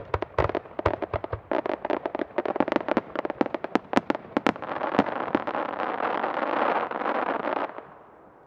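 Aerial firework shells bursting in rapid succession, dozens of sharp reports, building into a dense continuous crackling wash after about four and a half seconds that cuts off abruptly near the end.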